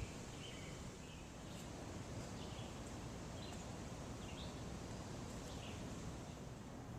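Outdoor ambience: a steady faint hiss and rumble, with a bird giving short chirps about once a second.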